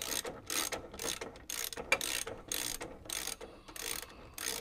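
Socket ratchet clicking in quick back-and-forth strokes, about three a second, as a 22 mm nut is run off a towbar side bracket.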